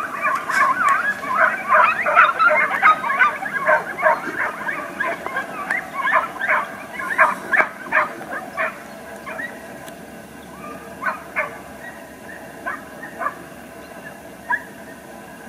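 A pack of hunting dogs barking and yelping over one another. The yelps thin out to scattered single barks after about nine seconds.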